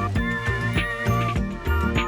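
Upbeat background music with a steady beat, a bass line and a bright melody.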